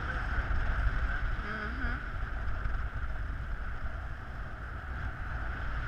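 Wind rushing over the microphone in paraglider flight: a steady low rumble and rush, with a few faint voice sounds about one and a half to two seconds in.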